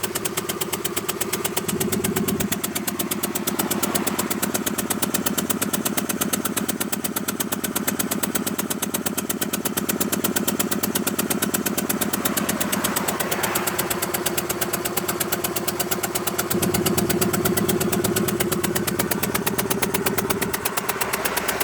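Peugeot 406 Coupé engine running steadily with a fine, regular pulsing, its tone shifting a few times. The owner finds the noise strange and does not know its cause.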